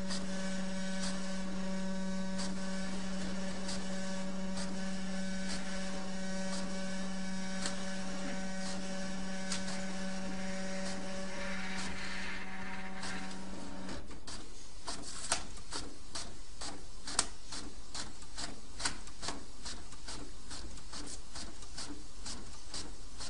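A steady machine hum with a low tone cuts off about two-thirds of the way through. Light clicks and ticks are scattered throughout and become much more frequent after the hum stops.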